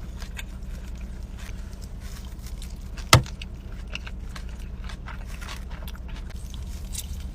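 Steady low hum of a car idling, heard from inside the cabin, with light crinkling and small clicks throughout and one sharp, loud click about three seconds in.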